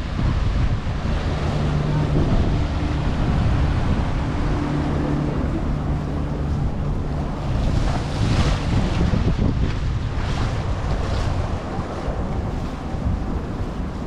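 Boat engine running with water rushing alongside and wind buffeting the microphone. A low, steady engine hum is clearest in the first half, and gusts of hiss come a little past the middle.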